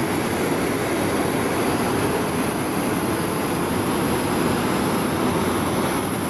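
Steady jet aircraft noise on an airport apron: an even rush with a thin, constant high-pitched whine above it, starting abruptly at the cut.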